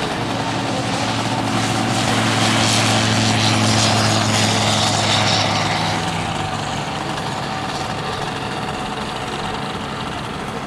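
Small ultralight airplane's engine and propeller running at power on its take-off roll, a steady note that swells to its loudest a few seconds in, then fades as the plane moves away down the runway.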